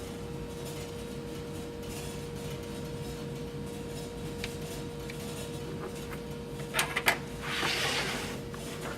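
Small handling sounds of measuring and marking a board: a couple of sharp clicks about seven seconds in, then a brief scrape, over a steady room hum.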